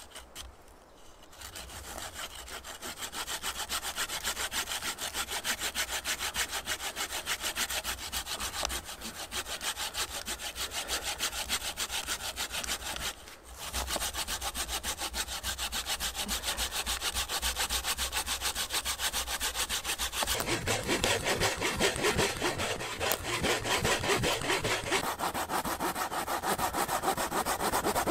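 Folding pruning saw cutting across a wooden pole in steady back-and-forth strokes. It starts about a second in, pauses briefly about halfway through, and is louder and fuller for the last third.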